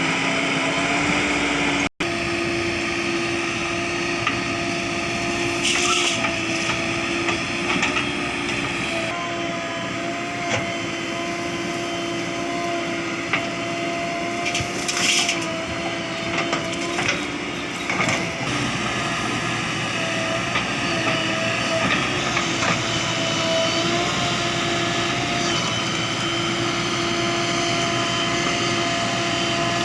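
JCB 3DX backhoe loader's diesel engine running steadily under working load, with scattered knocks and crunches from the bucket digging and dumping mud.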